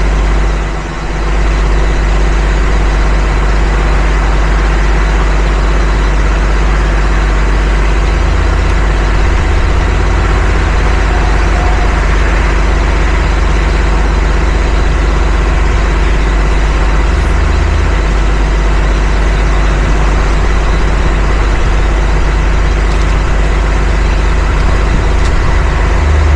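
Engine idling steadily close by, a loud constant low hum with a brief dip about a second in.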